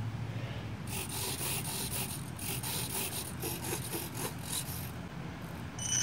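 A string of short rasping buzzes from the model plane's servos as the control surfaces are worked in a radio check. Just before the end the electric motor starts to spin the 7-inch propeller, with a quickly rising whine.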